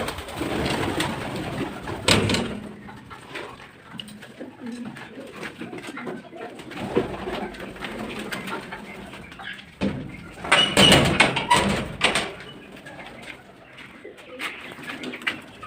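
Domestic pigeons cooing in a small room, with clattering handling noises and a louder burst of rustling clatter a little past the middle.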